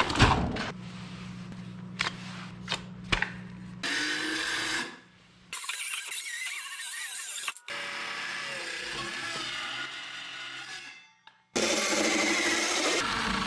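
Milwaukee cordless circular saw running and cutting old reused wood boards in several short stretches that stop and start abruptly. Before the cuts there are a few clicks and knocks of the saw being handled.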